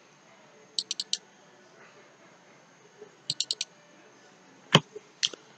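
Clicks from a computer mouse and keyboard. There are two quick runs of four sharp clicks, about a second in and about three and a half seconds in. Near the end comes one louder knock, followed by a couple more clicks.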